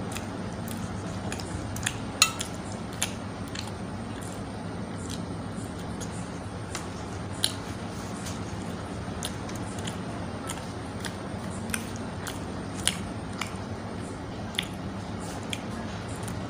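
Eating by hand from a steel plate: chewing and tearing of roti, with scattered short sharp clicks of fingers and food on the plate, the loudest about two seconds in, over a steady low hum.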